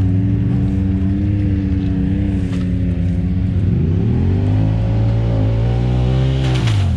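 Side-by-side UTV engine running steadily, then revving up about four seconds in and easing off near the end as the machine drives through the flooded trail.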